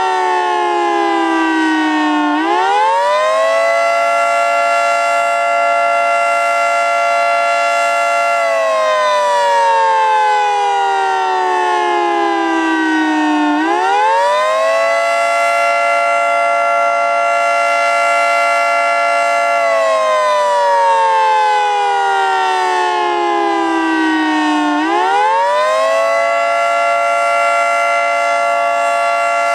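Federal Signal 2T22 two-tone electromechanical outdoor warning siren sounding the Attack signal, a rising and falling wail. Its chord climbs quickly, holds steady for several seconds, then slowly falls, in cycles about eleven seconds long, with rises about two seconds in, about thirteen seconds in, and near the end.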